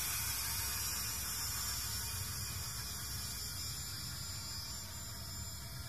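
Small quadcopter motors buzzing as a steady hiss with a low rumble, slowly fading as the Hubsan X4 Desire climbs away over a roof.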